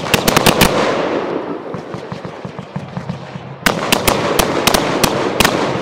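Fireworks display: a quick volley of sharp bangs at the start, a dense fading crackle, then a second volley of bangs about three and a half seconds in.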